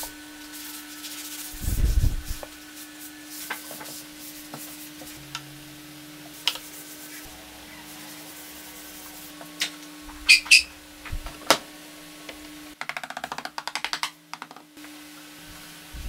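Wooden bird house parts being set and pressed together on a workbench. A low thump comes about two seconds in, then scattered light wooden taps and clicks and two sharp knocks a little past the middle. Near the end there is a quick rattling run of taps lasting about two seconds, all over a steady low hum.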